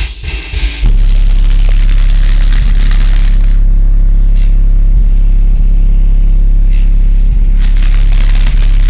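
JBL GT5-12 12-inch car subwoofer, powered by a Kicx 1.600 amplifier, playing a very loud, steady deep bass tone that starts about a second in, after a pulsing music beat. A hiss comes and goes over it.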